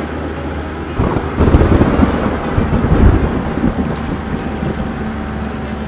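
Storm sound effect: a steady low rumble with wind, swelling into a louder rolling, crackling rumble of thunder about a second in, then easing back.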